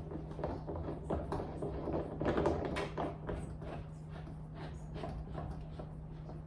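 Irregular small knocks and rustles of the top neck cap being fitted onto a dress form, over a steady low hum.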